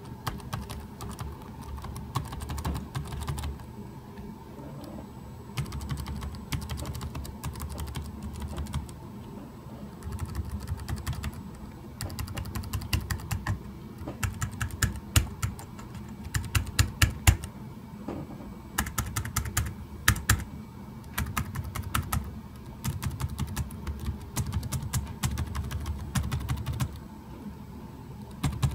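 EPSON Direct Endeavor NY40S laptop keyboard keys being tapped one after another. They click in quick runs with short pauses between, and the loudest taps come a little past halfway.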